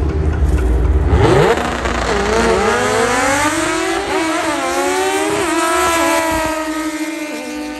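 Drag-racing car launching and accelerating hard, engine revs climbing with a couple of gear shifts. The engine fades as the car pulls away down the track.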